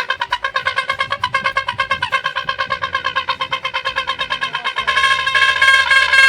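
A mouth-blown toy popy whistle fitted in a motorcycle's exhaust silencer, sounded by the running engine's exhaust: a buzzy, reedy honk pulsing about ten times a second with the exhaust beats. About five seconds in it grows louder and fuller.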